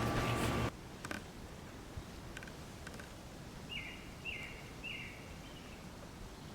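A steady hum cuts off under a second in, leaving a quiet outdoor background. Around the middle a bird calls three short times, about half a second apart, each note dropping in pitch at its end.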